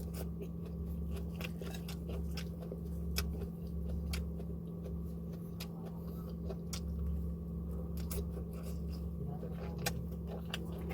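A person chewing and biting food close to the microphone, with scattered crisp clicks and crunches, over a steady low hum.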